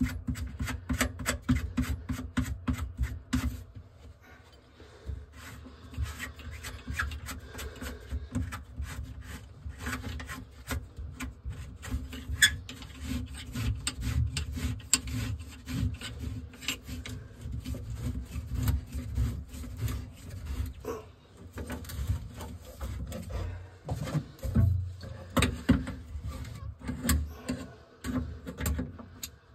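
Metal sink drain tailpiece being twisted by hand on the drain body's threads: a dense, irregular scraping and clicking of metal rubbing on metal, easing off for a moment about four seconds in.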